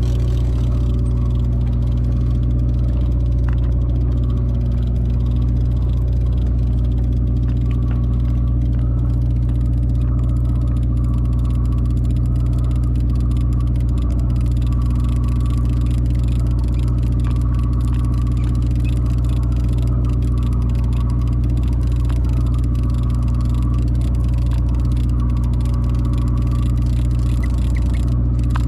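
Fishing boat's engine running steadily at constant speed, a continuous low drone.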